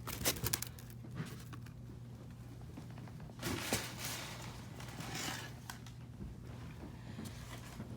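Packaging being handled in a shipping box: a few quick clicks and taps at first, then soft rustling and crinkling twice, over a faint steady low hum.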